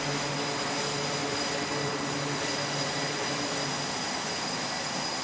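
Jet aircraft engines running on a carrier flight deck: a steady, even wash of noise with a faint high whine.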